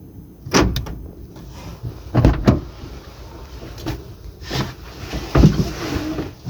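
A car's door locks being operated: a series of sharp clunks and clicks, a second or so apart, some in quick pairs.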